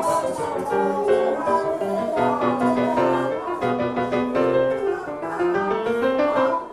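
Background music played on piano, a run of held notes that keeps moving in pitch.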